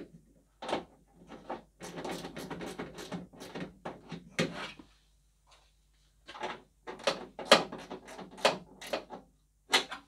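Flex-head ratchet tightening the screws of a tailgate handle: a run of clicks and clunks against the tailgate, then sharp knocks about twice a second in the second half.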